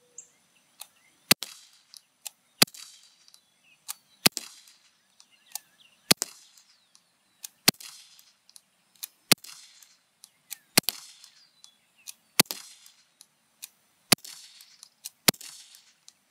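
Daisy Powerline 415 CO2-powered .177 BB pistol firing about ten shots, one every second and a half or so, each a sharp crack with a short fading tail.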